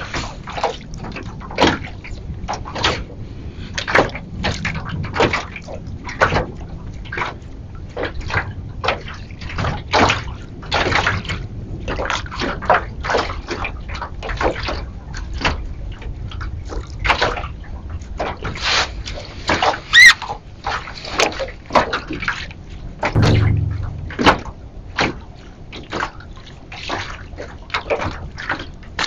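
Choppy water slapping and sloshing against the hull of a small boat in quick, irregular splashes, with one heavier, dull thump near the end.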